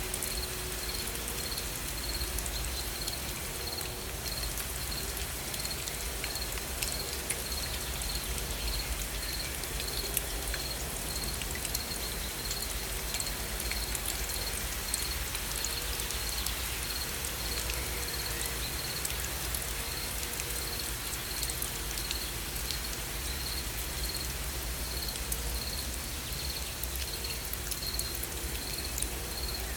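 Gentle rain falling steadily, with scattered drop ticks, while an insect chirps a high pulsed note about twice a second.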